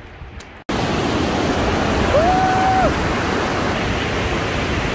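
Lower Yosemite Fall pouring down its cliff: a loud, steady rush of falling water that cuts in suddenly under a second in, with one brief tone about two seconds in.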